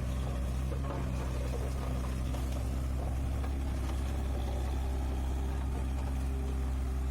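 An engine running steadily at a constant speed, giving an even, low hum.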